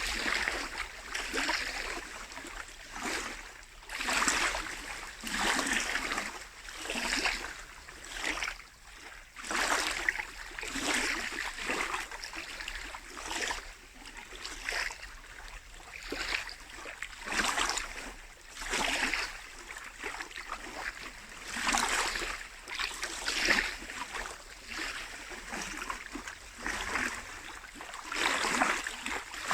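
Small lake waves lapping and splashing at the shore, one after another every second or two.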